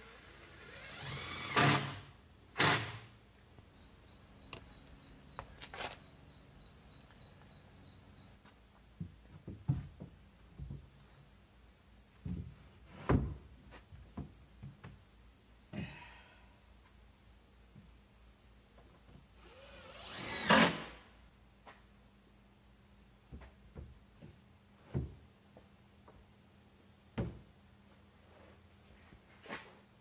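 Knocks and thuds of wood being worked by hand on a plank outhouse frame, with three louder bangs: two near the start and one about two-thirds of the way through. Crickets chirp steadily in the background.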